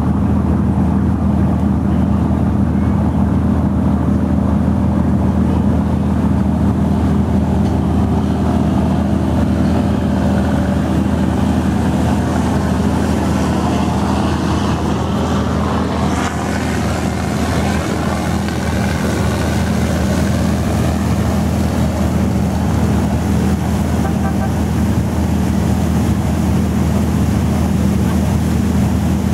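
A boat's engine running with a steady low drone, with the rush of water along the hull and wake above it.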